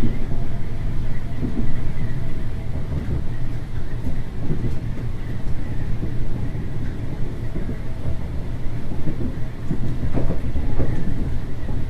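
Diesel railcar running along the line, heard from on board: a steady low rumble of engine and wheels on the rails, with a few knocks from the wheels near the end.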